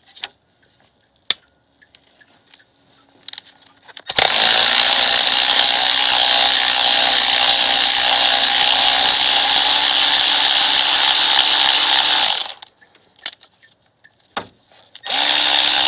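A power tool driving a Torx T50 bit to spin out the idler pulley bolt on a Mercedes M112 V6. After a few light clicks it runs steadily for about eight seconds, stops, then starts again near the end.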